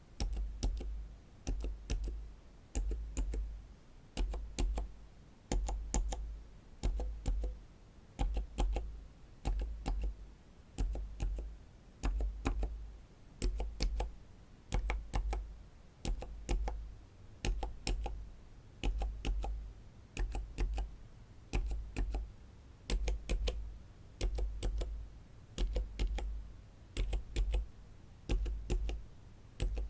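Silent mechanical keyboard switches pressed one at a time, about once a second. Each stroke gives a soft, damped click on the way down and back up, over a dull low thud.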